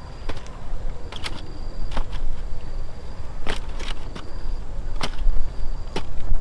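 Irregular sharp strikes of a hand tool, such as a hoe or machete working at cassava roots and stems, some coming in quick pairs, with a thin high-pitched whine that comes and goes behind them.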